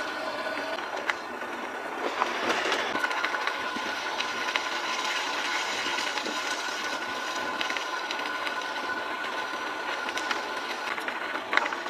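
Kei truck driving on a paved road, heard from a camera mounted low beside the wheel: steady tyre and road noise with rattling from the body and suspension and a steady high whine running through it. A couple of sharp knocks near the end, as from a bump in the road.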